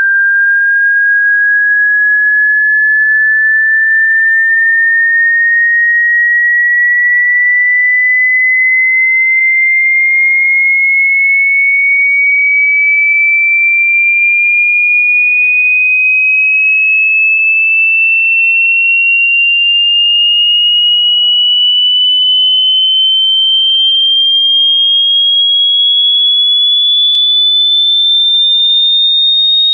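Hearing-test sine-wave tone: a single pure tone at constant loudness, gliding slowly and steadily upward in pitch as a frequency sweep.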